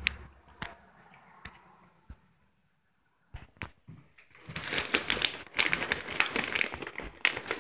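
A plastic cat treat bag crinkling and rustling as it is handled and tipped open, a dense run of rapid crackling clicks that starts about halfway in and is the loudest sound. Before it come a few faint knocks and a short silence.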